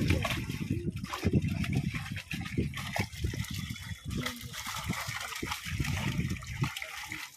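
Pond fish thrashing in a hauled-in drag net in shallow water: continuous, irregular splashing and sloshing.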